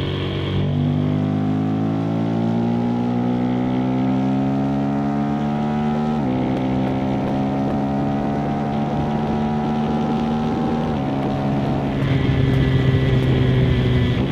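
KTM 390 SMC-R single-cylinder engine breathing through a Stage 2 DNA intake filter, accelerating under load. The revs climb steadily, drop sharply at a quick upshift about six seconds in and climb again. Near the end they level off and the sound grows louder and rougher.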